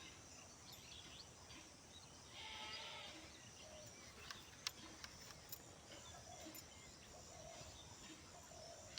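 Near silence: faint outdoor background, with one faint distant animal call about two and a half seconds in and a few small clicks.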